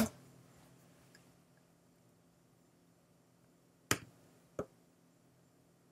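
Two short clicks of a computer mouse, about two-thirds of a second apart, in near silence.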